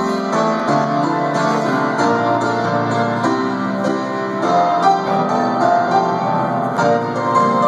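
Piano playing the instrumental introduction to a choir anthem, full chords with many notes struck in quick succession.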